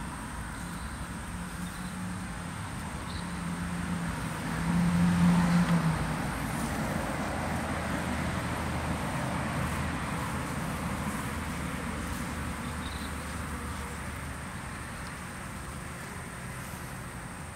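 Honeybees buzzing at the hive entrance. One bee's wingbeat buzz swells close by from about two seconds in, is loudest around five seconds, then fades away. A steady background rumble runs underneath.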